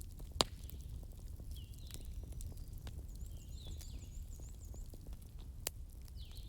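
Wood fire crackling, with a sharp pop about half a second in and another near the end, over a low steady rumble. Birds chirp repeatedly in short high calls over the fire.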